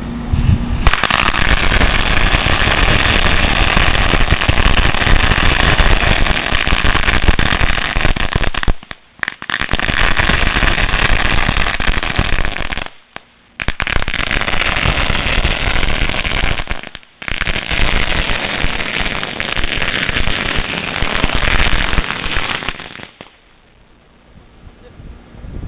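A long string of 8,000 firecrackers going off in a continuous rapid crackle of bangs for about 22 seconds. It breaks off briefly three times and stops a couple of seconds before the end.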